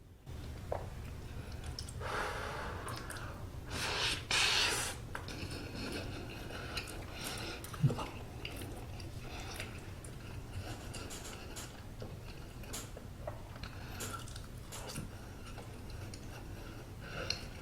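Close-miked chewing of a soft steamed bun (hoppang), with wet mouth clicks and smacks. Two louder breathy rushes come a few seconds in, over a steady low hum.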